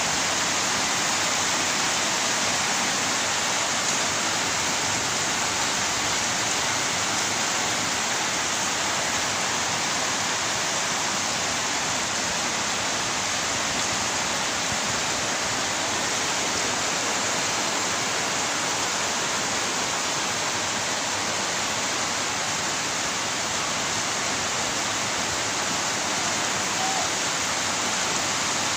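Heavy rain pouring steadily on trees and rooftops, an even, unbroken hiss.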